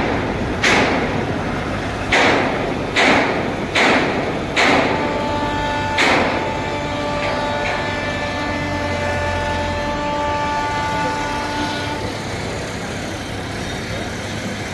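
Steel striking steel girder sections: about seven sharp clangs, each ringing briefly, spread irregularly over the first six seconds. From about five seconds a steady pitched tone holds for about seven seconds over a low machinery rumble.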